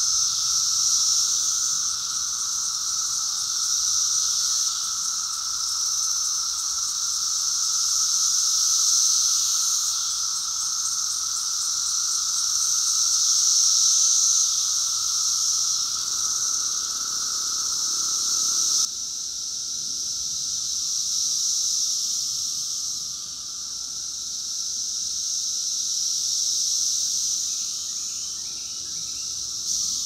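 Chorus of thousands of 17-year periodical cicadas singing together: a steady, eerie drone made of a high hissing whine over a lower, steadier tone. It drops a little in level about two-thirds of the way through.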